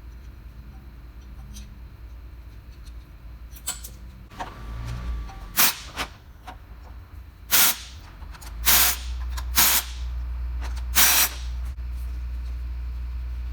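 Five short, loud hissing bursts of pressurized spray, each under half a second, starting about halfway in, over a low steady rumble that grows louder near the end.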